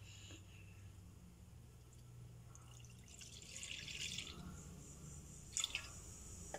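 Milk pouring in a thin stream into a non-stick pan: a soft splashing hiss for about a second, starting about three seconds in. A light click follows near the end.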